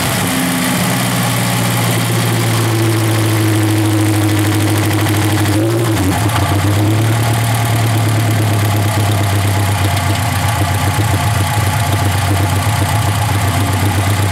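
Chevrolet Chevette's four-cylinder OHC engine idling steadily after its revs settle, with a brief small rise in revs about six seconds in.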